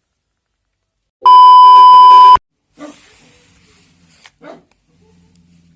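A loud, steady electronic beep with a single pitch, lasting about a second, that stops abruptly. It is followed by a few faint, short sounds.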